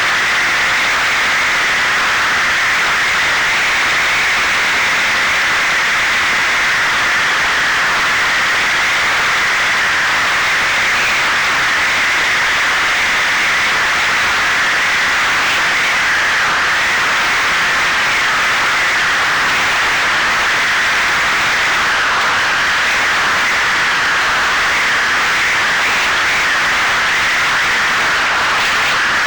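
Steady, unchanging rushing hiss of air and motor noise picked up by the onboard camera microphone of an FPV flying wing in flight.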